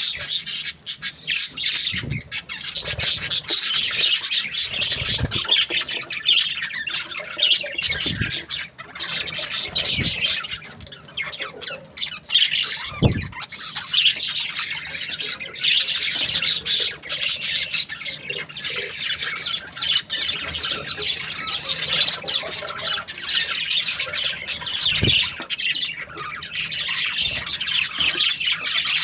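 Many budgerigars chattering and chirping at once in a dense, continuous chorus, with a few low thumps here and there.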